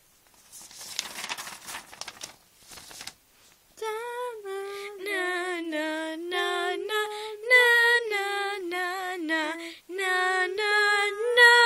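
Paper rustling as a hand-drawn card is handled, then from about four seconds in a girl sings a wordless tune a cappella, moving in held, stepping notes.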